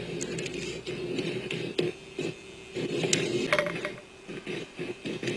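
Council-chamber room noise between speakers: scattered light clicks and knocks over a steady low hum, heard through a television.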